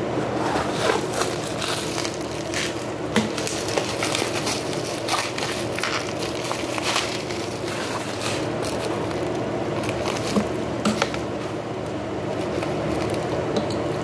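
Plastic packaging crinkling and light clicks and knocks as the mini washer's plastic housing and power cord are handled, over a steady room hum.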